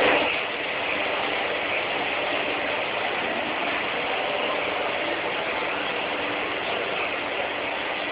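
Steady running noise of industrial machinery, an even mechanical drone that holds without change.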